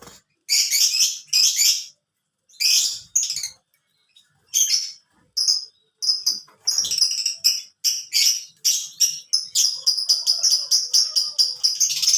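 Canary singing in short bursts of warbling trills separated by brief pauses, breaking into a fast run of repeated notes, about five a second, over the last few seconds.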